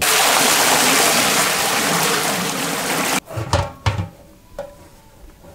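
Water poured from a vessel into a large metal cooking pot, filling it for steaming: a steady rushing splash that stops suddenly about three seconds in. A few soft knocks and handling sounds follow.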